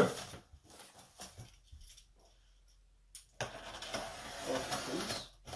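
Cardboard and packing material rustling and scraping as a boxed DJ controller is unpacked by hand. A few light knocks come first, then a near-silent pause, then a steady stretch of rustling for the last two seconds or so.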